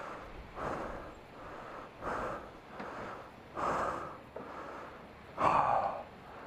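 A person panting hard close to a helmet microphone, a loud breath about every second and a half with softer ones between. The rider is out of breath after pushing the out-of-fuel motorcycle to the pump.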